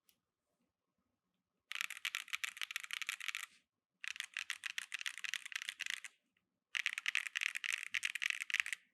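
Very fast typing on a mechanical keyboard with Keygeek Raw linear switches in a gasket-mounted Monsgeek M1 V2 with a PC plate. Three dense runs of keystrokes come about two seconds each, with short pauses between them.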